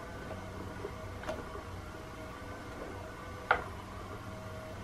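Battery-powered Thrill and Chase cat toy running: its small motor hums steadily as it turns the feathers under the plastic dome. A couple of sharp taps come over it, the loudest about three and a half seconds in, as a cat paws at the plastic dome.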